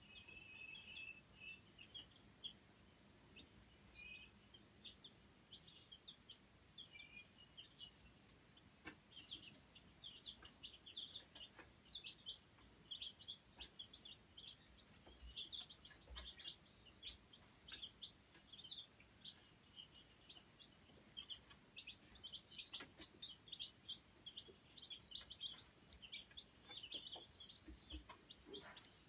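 Young chicks peeping faintly: many short, high chirps overlapping one another, sparse for the first few seconds and almost continuous from about nine seconds in. A few faint taps are heard among them.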